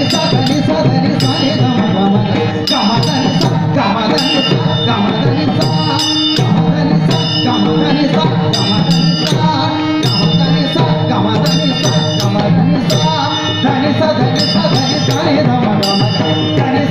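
Marathi Warkari devotional music: small hand cymbals (taal) struck in quick ringing clusters over drum accompaniment.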